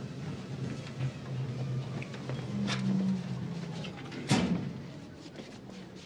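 A metal locker door clanks shut about four seconds in, with a few lighter knocks before it, over a low steady hum.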